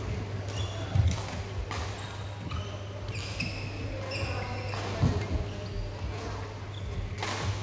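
Badminton-hall sounds between rallies: court shoes squeaking briefly on the court floor, a few dull thumps of footsteps, and a steady low hum under it all.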